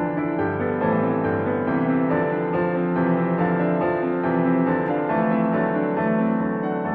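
Slow, tender piano music: sustained chords with notes changing every half second or so.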